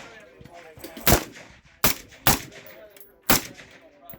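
Four gunshots at irregular intervals, sharp reports each with a short echo, with faint voices in the background between them.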